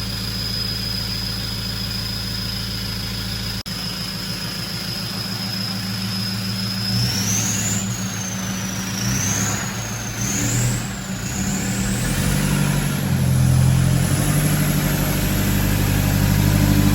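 Toyota Hilux engine idling steadily, then revving up and down as the truck moves off, with a high whine rising and falling along with the engine.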